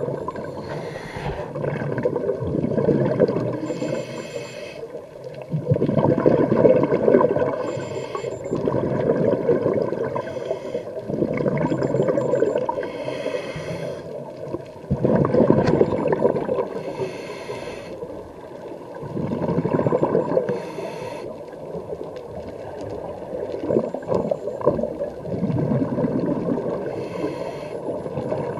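Scuba regulator breathing heard underwater: short hissing inhalations every few seconds, alternating with longer bubbling, gurgling exhalations.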